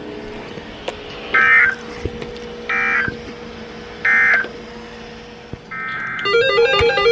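Emergency Alert System end-of-message data tones: three short warbling digital bursts a little over a second apart, marking the end of the warning. Near the end a fourth short burst is followed by a plucked, guitar-like music loop.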